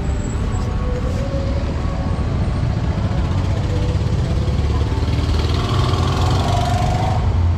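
A motor vehicle engine idling with a steady low rumble, with faint voices in the background.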